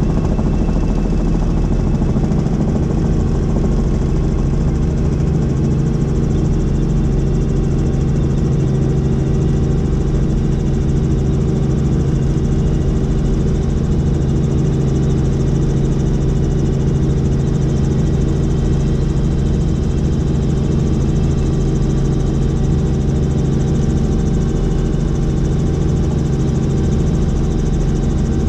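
Helicopter in flight, heard from inside the cabin: a steady, loud drone of rotor and engine with several steady tones, unchanging throughout.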